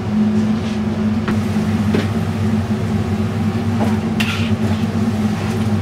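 Steady low hum of a restaurant kitchen's exhaust hood, with a few light clinks of utensils and a short clatter about four seconds in.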